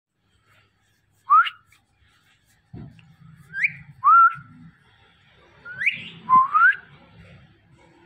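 Indian ringneck parakeets giving about six short, clear whistles, each sweeping quickly upward in pitch.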